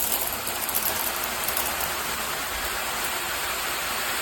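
SparkPod handheld shower head spraying water, a steady hiss of spray.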